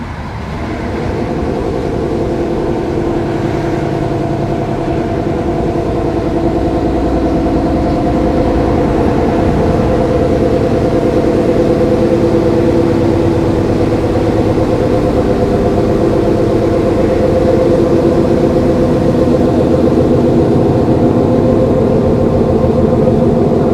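Intercity passenger train running, heard from inside a carriage: a steady rumble with a droning hum, growing louder over the first couple of seconds.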